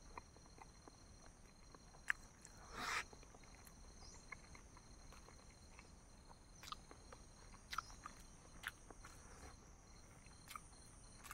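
Quiet eating sounds from a person working through boiled eggs with spicy chutney: scattered faint mouth clicks, and a short sniff or breath about three seconds in, over a faint steady high whine.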